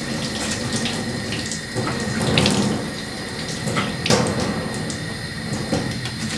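Tap running into a stainless-steel sink, with water splashing as hands scoop it up and wash the face; the splashing is loudest about two and a half seconds in and again at about four seconds.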